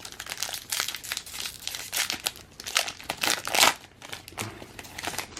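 Foil wrapper of a baseball trading-card pack crinkling and tearing as it is opened, loudest about three and a half seconds in.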